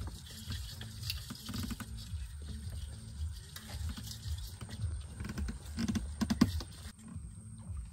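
Mangrove leaves and twigs rustling and scraping against a wooden boat and the man pushing through them: a run of small clicks and crackles, busiest with a louder knock about six seconds in.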